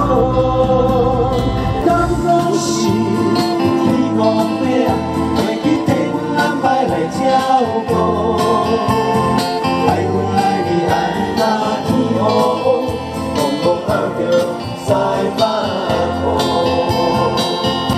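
Background music with singing and guitar.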